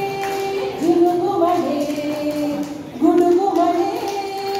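A song with a high singing voice, a short melodic phrase repeating about every two seconds; the music the children are dancing to.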